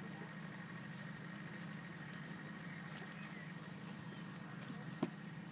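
A steady low engine hum, like a motor idling, with a single sharp click about five seconds in.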